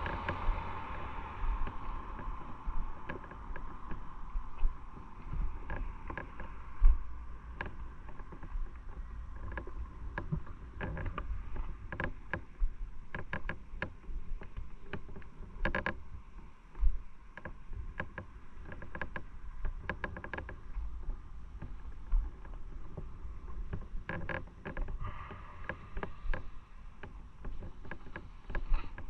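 Onboard recording from a moving motorcycle: a steady low rumble with wind noise on the microphone and frequent sharp knocks and clicks.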